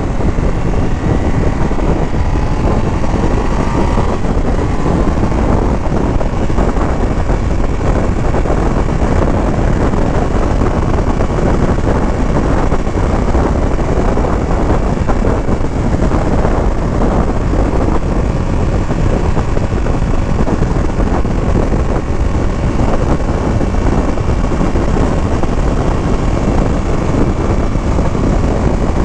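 2025 Indian Scout 101's 1250 cc V-twin running on the highway under heavy wind rush, its pitch rising in the first few seconds as it picks up speed, then holding steady at cruising speed.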